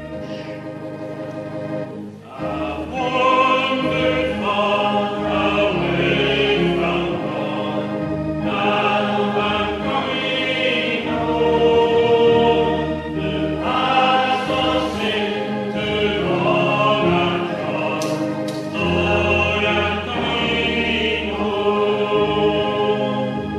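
Church organ playing the hymn introduction, then the congregation comes in about two seconds in, singing the hymn in phrases with the organ accompanying.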